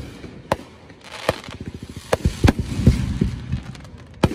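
Aerial fireworks shells bursting overhead: a string of sharp bangs spaced unevenly, with a dense patch of crackling pops in the middle.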